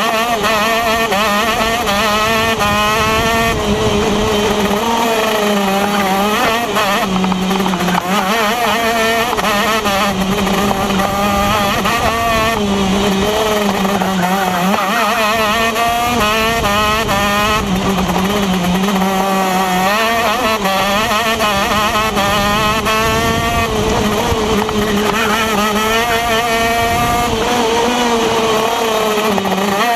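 Onboard sound of a TM KZ10 125cc two-stroke shifter kart engine at racing speed, its pitch climbing hard under acceleration and dropping back again and again as the kart brakes into corners and pulls out of them.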